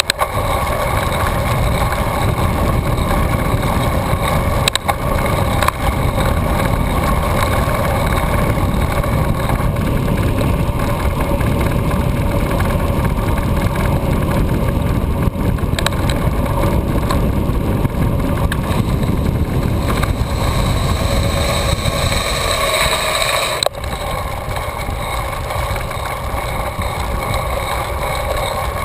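Steady wind rush and rumble on the microphone with tyre and road noise from a Catrike Musashi recumbent trike rolling along asphalt. The sound drops a little in level suddenly about 24 seconds in.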